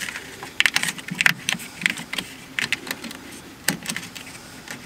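Corrugated plastic split wire loom clicking and rustling as it is pushed by hand back over a rubber fuel line. The clicks are irregular and light, with a quick cluster about a second in and a sharper single click a little before the end.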